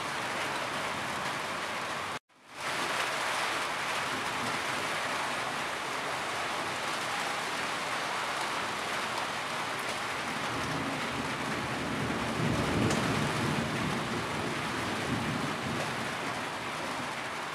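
Heavy rain falling steadily, with water dripping and streaming off the edge of a corrugated roof. The sound drops out for a split second about two seconds in and fades back, and a low rumble swells about twelve seconds in.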